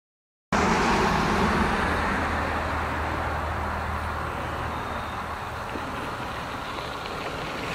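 Steady rumble of road traffic with a low engine hum, starting abruptly about half a second in and easing slightly.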